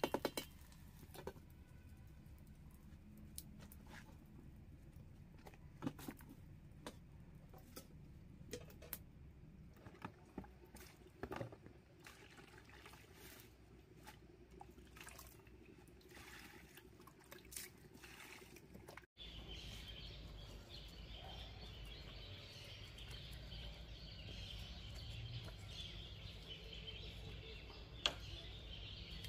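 Faint water pouring and splashing as greens are washed by hand in a plastic basin, among scattered light knocks and clinks. About two-thirds of the way through the sound changes abruptly to a steady outdoor hiss, with one sharp knock near the end.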